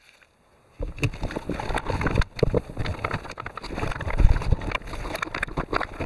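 Irregular clicks, knocks and rustling of a hand and sleeve working a spark-plug socket, extension and ratchet, starting after nearly a second of silence.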